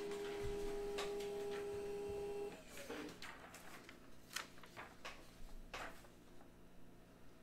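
A steady tone that stops suddenly about two and a half seconds in, then scattered light clicks and taps.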